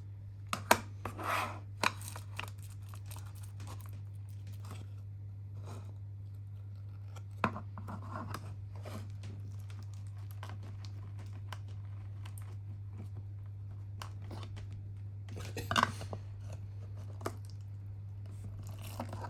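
Hands working portioned ground meat into a patty press: scattered rustles, scrapes and light taps over a steady low hum, with a cluster of louder handling noises about 16 seconds in.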